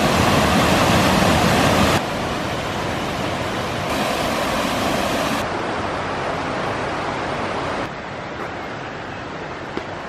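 Waterfall and river cascades rushing steadily over rock ledges. The sound is loudest at first, then drops abruptly to quieter rushing water a few times: about two seconds in, about halfway through, and again near the end.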